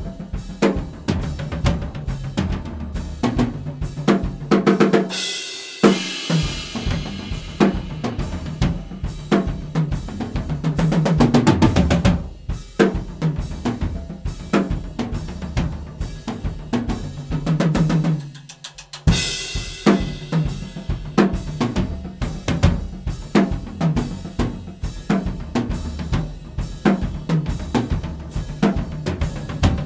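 Dixon Fuse Maple drum kit with Sabian cymbals played with sticks: a busy groove on bass drum, snare and hi-hat, broken by tom fills and crash cymbal hits about six seconds in and again near twenty.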